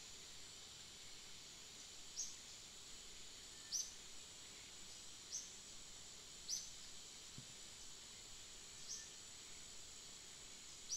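Faint outdoor ambience: a steady high insect drone, with a bird repeating a short, high chirp every second or two.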